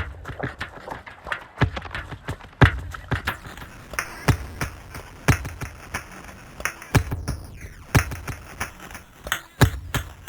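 Composed piece of percussive sound: a dense run of sharp clicks and knocks over heavier low thumps that recur roughly every second, with a falling sweep about seven seconds in.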